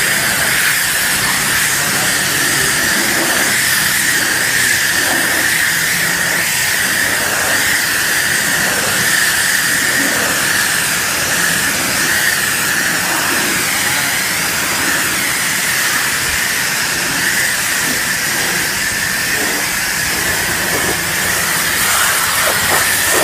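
Pressure washer jet spraying water onto a car's trunk lid and tail lights: a steady, loud hiss.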